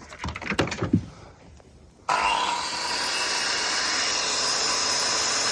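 A few knocks and clatter, then about two seconds in a power tool starts suddenly and runs steadily with a high whine.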